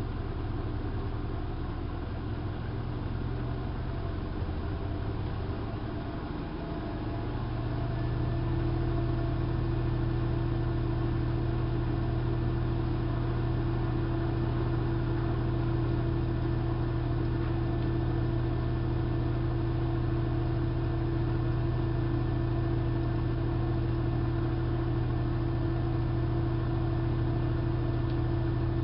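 hanseatic HWM814A3D front-loading washing machine spinning its drum, a steady motor hum. About seven seconds in the motor speeds up and then holds a steady, slightly louder hum at the higher speed.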